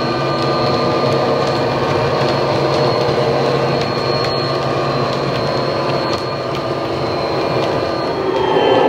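Model Class 59 diesel's DCC sound decoder playing a recorded EMD two-stroke diesel engine through the locomotive's small speaker, running steadily, with the rumble of model hopper wagons on the track and occasional clicks. Near the end the engine sound shifts and grows louder.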